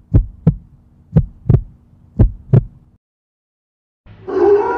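Heartbeat sound effect: three double 'lub-dub' beats about a second apart, stopping about three seconds in. A steady humming tone comes in near the end.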